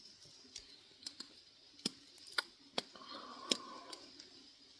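About a dozen faint, irregular clicks and ticks, with a faint short hum about three seconds in.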